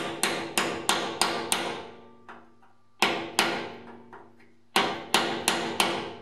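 Hammer knocking a retaining clip off a steel fuel tank: sharp metallic strikes in three quick runs, about three a second, with the tank ringing after the blows.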